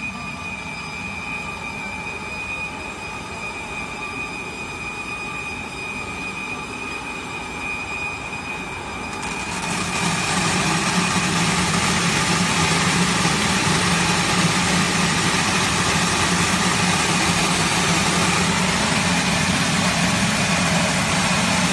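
Belt-type quartz sand colour sorter running: a steady machine hum with a high whine. About nine seconds in, a louder steady hiss joins as the sand stream pours into the collecting bin.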